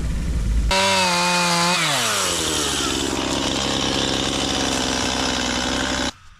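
Chainsaw running at high revs, its engine pitch dropping about a second in and holding lower, as it does under cutting load in wood, then cutting off abruptly near the end.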